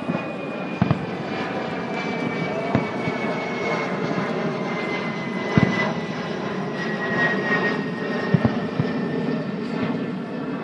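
An airplane's engines passing, a steady rushing with a high whine that falls slowly in pitch. Several dull firework booms cut through it, the loudest about a second in and about halfway through.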